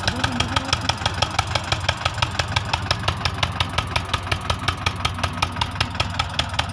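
Eicher 242 tractor's diesel engine running steadily, with a sharp regular knock about six times a second.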